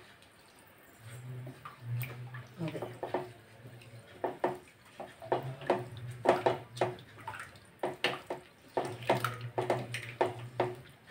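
A spoon stirring washed rice into thin, watery prawn gravy in an aluminium pot: wet sloshing with irregular scrapes and taps against the pot, starting about a second in.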